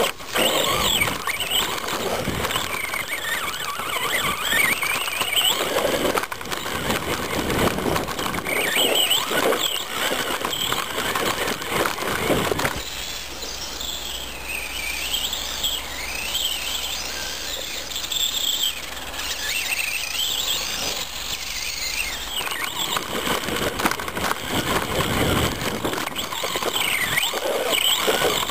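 Traxxas Stampede VXL's brushless electric motor whining, its pitch rising and falling with the throttle, over the noise of the tyres churning through snow, heard from a camera riding on the truck. In the middle stretch the whine is fainter, heard from a distance, over a steady low hum.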